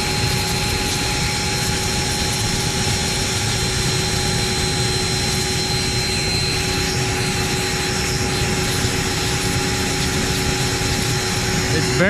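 Steady roar of a vortex IR ring burner firing a 40 ft monotube steam coil, mixed with the hiss of steam jetting out of the coil's nozzle. A few steady tones run through the noise.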